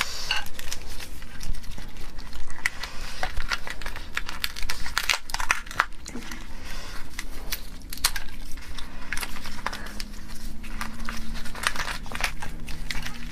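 Gloved hands cracking and peeling the shell of a large mantis shrimp: rapid, irregular crackles and crinkles of shell and plastic gloves throughout.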